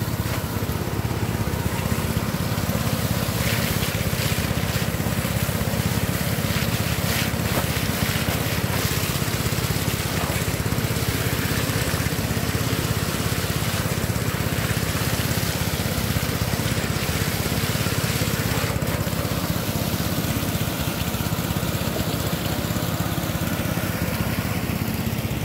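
Engine-driven water pump running steadily, with pond water gushing from its outlet pipe into a catch net.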